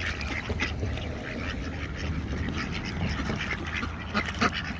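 Many ducks quacking at once in short, overlapping calls, over a steady low rumble.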